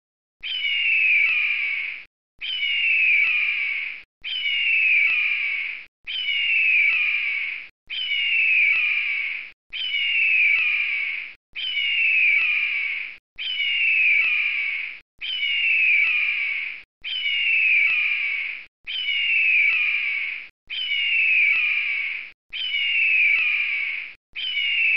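A looped bird-call sound effect: the same raspy call, falling in pitch and about a second and a half long, repeats identically some fourteen times with short silent gaps between.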